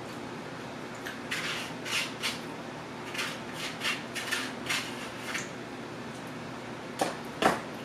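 A spoon scraping and tapping in a small KFC side bowl of mashed potatoes: a run of short scrapes and clicks, then two sharper clicks near the end.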